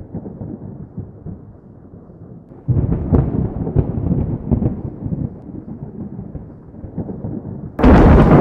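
Thunder rumbling, muffled, with a sudden louder roll about three seconds in. Near the end it switches abruptly to loud, clear storm sound.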